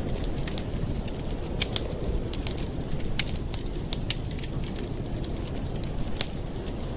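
Campfire burning, wood crackling with quick irregular pops and snaps over a steady low rumble of the flames.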